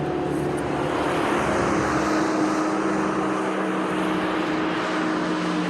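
A motor engine running steadily, its pitch stepping down slightly about a second in while a low rumble fades out a second later.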